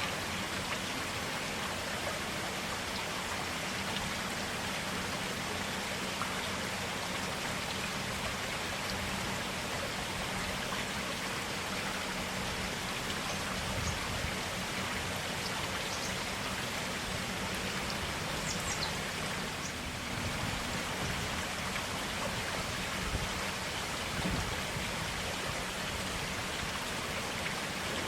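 Forest stream water flowing and splashing in a steady, even rush, with a few faint high chirps about two-thirds of the way through.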